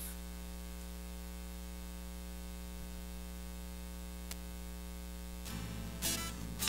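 Steady electrical mains hum and hiss from the sound system, with a single faint tick about four seconds in. Near the end the band begins to play, with a sharp percussive hit.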